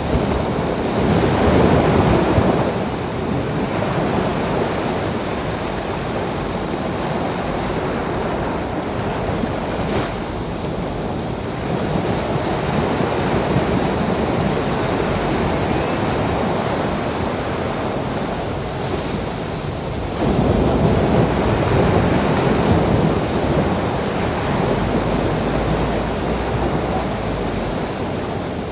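Sea waves rushing onto a shore in a steady wash, with two louder surges as waves break, one about a second in and another about twenty seconds in.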